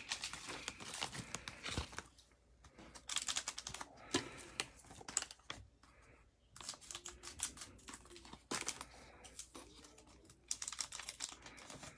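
Plastic trading-card pack wrapper crinkling and being cut open with scissors, handled by gloved hands. It comes as short bursts of small clicks and rustles with brief quiet gaps between them.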